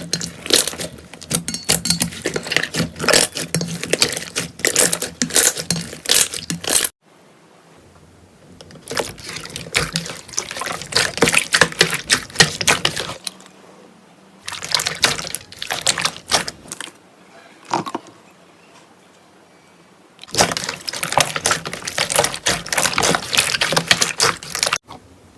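Slime being squished and pressed, making dense runs of wet clicks, crackles and pops. The clicking stops and starts several times, with quieter stretches about seven seconds in and again near eighteen seconds.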